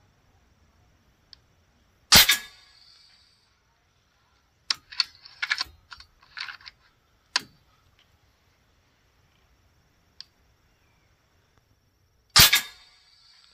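FX Panthera .30-calibre PCP air rifle firing twice, about ten seconds apart. In between comes a run of clicks and rattles as the action is cycled to load the next round.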